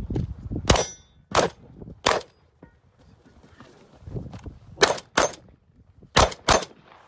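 Seven shots from a Benelli M2 semi-automatic shotgun: three about two-thirds of a second apart, then, after a pause of nearly three seconds, two quick pairs.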